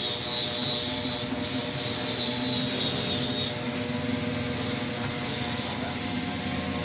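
A machine running steadily with an even hum and several held tones; a high whine over it fades out about halfway through.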